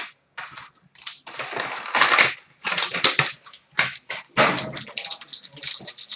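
Crinkling and tearing of plastic and foil wrapping as a trading card box and pack are opened, in a run of irregular crackles.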